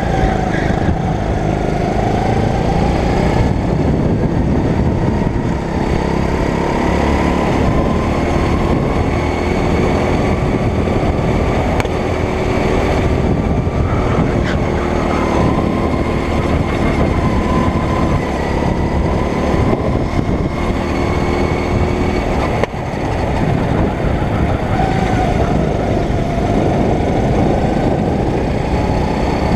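9 hp go-kart engine running hard under the driver, heard on board, its pitch rising and falling as the kart slows for corners and speeds up on the straights.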